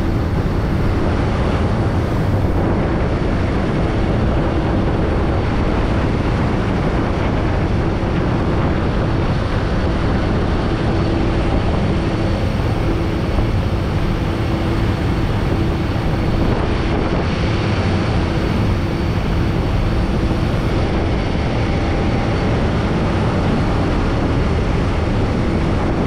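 A boat's engine drones steadily under the loud rush of its churning propeller wake.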